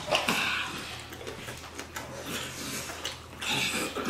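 Eating noises from chicken wings in very hot sauce: smacking and chewing, with hissing breaths drawn in against the chili heat, strongest just after the start and again near the end.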